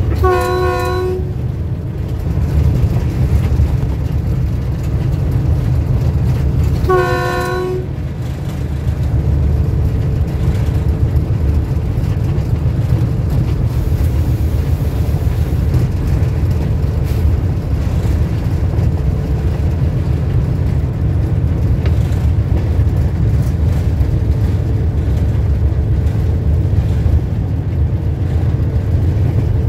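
Diesel locomotive horn, two blasts of about a second each, one at the start and one about seven seconds in, over the steady low rumble of the running train.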